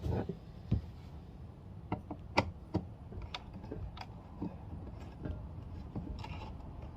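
Irregular light clicks and scrapes of a hand screwdriver working at a glue-clogged screw in a plastic armrest, with a sharper click about two and a half seconds in.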